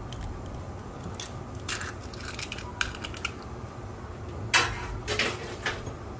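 Scattered light clicks and knocks of eggshells and a spoon against a stainless steel wok as eggs are cracked open, with one sharper knock a little after four seconds.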